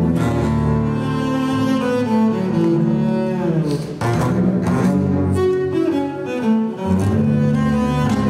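A quartet of double basses played with the bow, holding sustained notes in several parts at once. About three seconds in the voices slide downward together.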